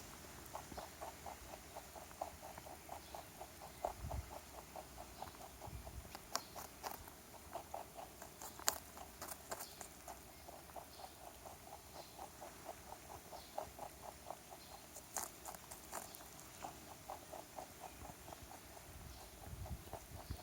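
A rabbit chewing a carrot: a rapid, even run of small crunches, about four or five a second, with a few sharper, louder crunches.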